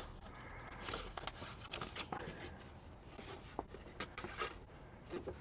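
Faint rustling and light ticks of paper and packaging being handled.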